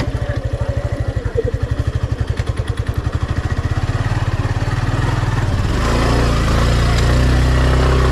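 Motorcycle engine running with a fast, even pulsing beat, then revving up about six seconds in and holding a louder, steadier note.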